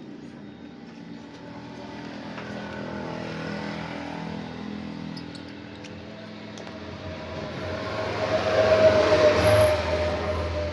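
A motor vehicle's engine running, growing louder to a peak about nine seconds in and then easing off, as of a vehicle going past.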